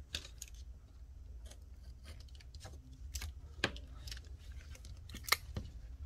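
Adhesive tape being pressed onto and trimmed along a phone's frame by hand: scattered small clicks and crinkles, with two sharper clicks about three and a half and five seconds in.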